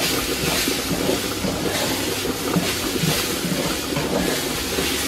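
Washed rice with diced vegetables sautéing in hot oil in a metal pot on high heat: a steady sizzle, with the scrape of a wooden spoon stirring it every half second or so.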